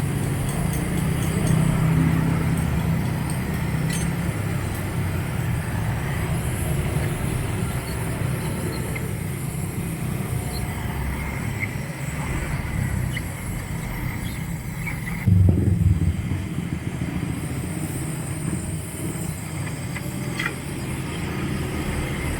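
A motor vehicle engine running steadily with a low rumble, with a brief louder surge about fifteen seconds in.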